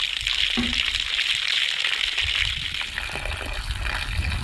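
Steady rushing water, like a stream running close by, with a low rumble beneath it.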